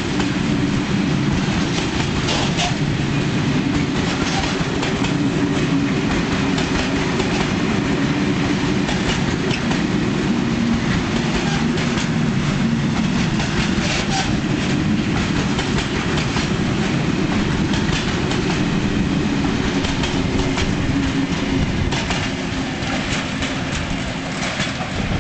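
Freight train of an M62 diesel locomotive rolling past: a steady low rumble with the repeated clickety-clack of the wagons' wheels over rail joints.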